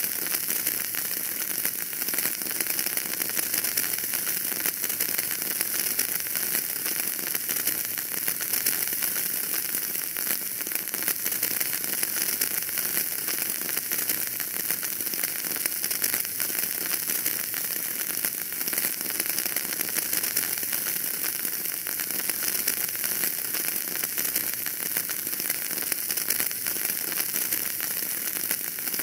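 Wood fire crackling in a fireplace: a dense, steady stream of small pops and crackles over a constant hiss.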